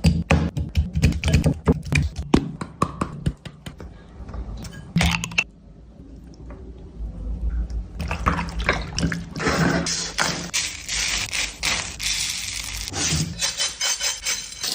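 Clattering and scraping at a dosa griddle, with many sharp clicks and knocks over a steady low hum, then a dense sizzling hiss starting about eight seconds in.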